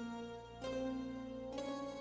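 Slow instrumental music: a melody of single sustained notes, a new note about every second.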